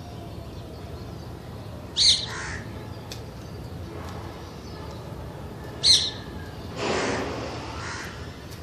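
A green parakeet gives two short, sharp, harsh screeches about four seconds apart. About a second after the second one comes a longer, rougher call.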